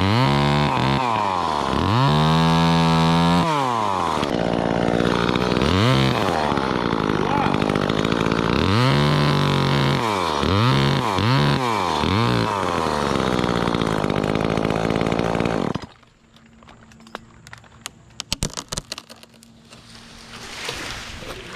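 Chainsaw revving: it climbs to full throttle and holds briefly, drops back, then is blipped up and down several times in quick succession. It cuts off suddenly about three-quarters of the way through, leaving a few faint clicks and rattles.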